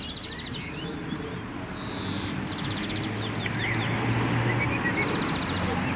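Songbird singing a repeated phrase: a swooping note, a fast trill, then a few quick falling notes, twice. Under it runs a steady background hiss, with a low hum for about a second and a half near the middle.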